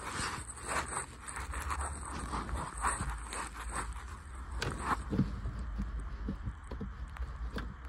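Hands working the plastic parts around a car's automatic gear shifter: scraping and rustling with scattered small clicks, and a sharper click about two-thirds of the way in and another near the end, as the shift-lock release is pushed and the shifter is moved out of park.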